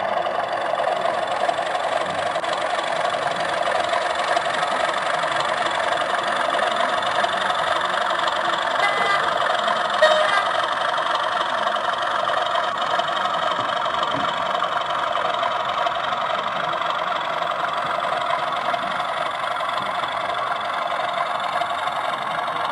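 Model Class 37 diesel locomotive's DCC sound decoder playing a running diesel engine sound through its small onboard speaker, a steady drone with little deep bass. A brief knock comes about ten seconds in.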